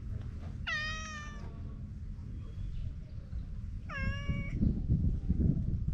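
A cat meowing twice, two short calls about three seconds apart, each rising slightly and then holding its pitch. After the second meow a low rustling noise grows loud.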